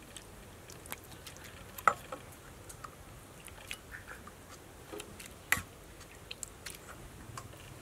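Metal spoon clinking and scraping against a steel mixing bowl and a glass serving bowl as a wet, saucy mixture is spooned out, with scattered light clicks. Two sharper clinks stand out, about two seconds in and about five and a half seconds in.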